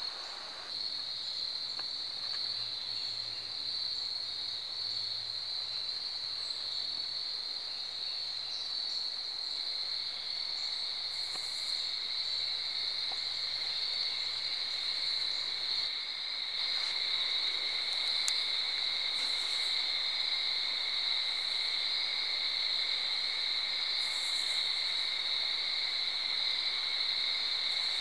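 Night insect chorus of crickets: a steady high-pitched trill that runs unbroken, joined about ten seconds in by a second, lower steady trill.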